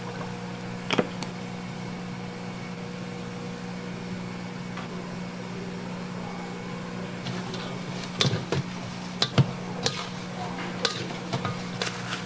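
Kitchen utensils and cookware knocking and clattering over a steady low hum, with one sharp knock about a second in and a run of louder knocks and clatter about eight to ten seconds in.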